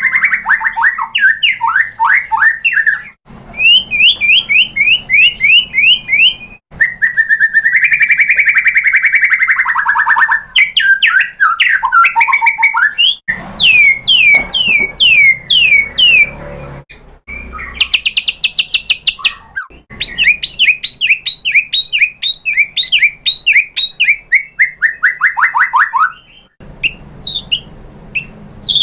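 White-rumped shama singing loud, rapid song: fast runs of sweeping whistled notes and buzzy trills, phrase after phrase, broken off suddenly several times.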